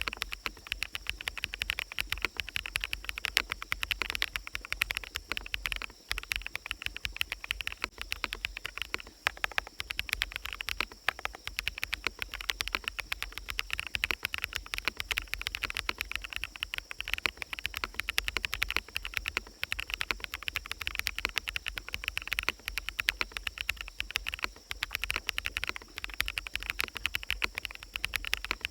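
Fast, continuous typing on a mechanical keyboard fitted with fully lubed bsun Sunset Yellow switches, a steady stream of key strokes over a forest ambience.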